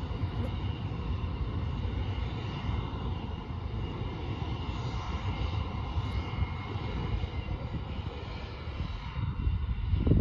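Rear-engined jet airliner's turbofan engines running at taxi power: a steady whine with several held high tones over a low rumble. Wind gusts buffet the microphone near the end.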